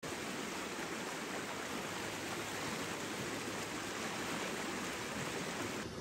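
River water rushing steadily, an even hiss of flowing water.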